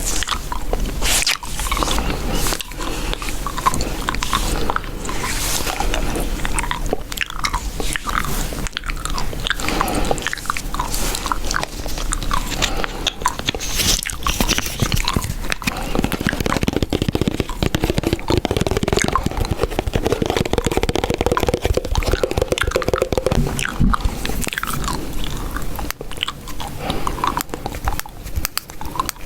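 Close-miked chewing gum being chewed with the mouth open: wet smacks and crackly clicks that keep coming without a break.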